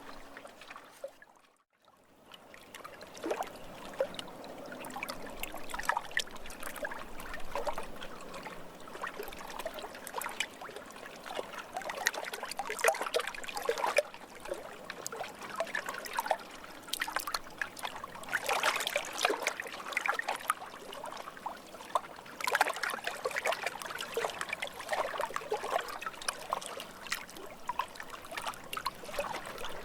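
Lake water lapping and trickling: a steady run of small splashes and plinks, dropping almost to silence for a moment about a second and a half in.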